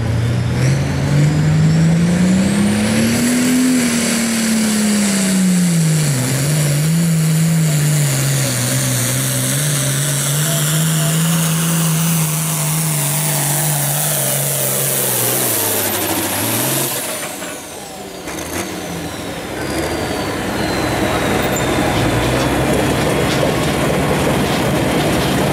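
An International Harvester pulling tractor's 466 cubic-inch diesel runs at full throttle under load on a pull. The engine climbs in pitch over the first few seconds, then holds at high revs for about 13 seconds with a high turbo whistle rising over it. About 17 seconds in the throttle drops off, the whistle winds down, and the engine settles back to a low idle.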